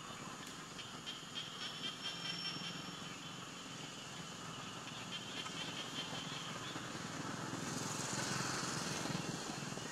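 Outdoor tree-canopy ambience: faint high steady tones for the first several seconds, then a louder rustling noise about eight seconds in.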